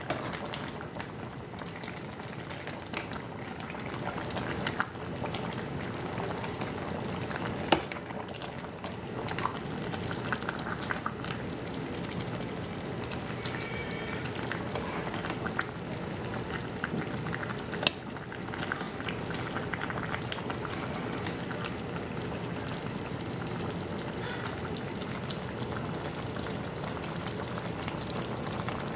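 Food cooking in a pot on the stove, a steady bubbling, crackling hiss, with a few sharp clinks of a utensil against the pot, the loudest about a third and two thirds of the way through.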